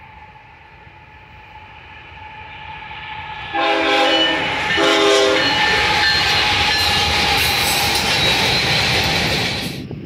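An approaching freight train's rumble grows louder. The air horn of the Union Pacific lead diesel locomotive then sounds two blasts, about three and a half and five seconds in. The loud rush and rumble of the locomotives and freight cars passing close by follows and cuts off suddenly near the end.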